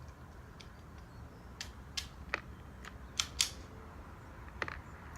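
About seven faint, sharp clicks and pops at irregular intervals, a few close together in the middle, over a low steady background hum.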